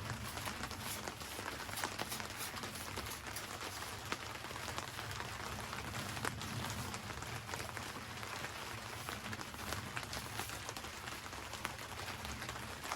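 Steady rain heard from inside a shed, with many separate drops ticking against the roof.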